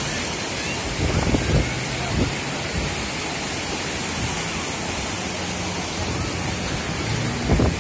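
Ocean surf breaking and foaming up the beach, a steady rushing noise, with a few low rumbles of wind on the microphone about a second in and near the end.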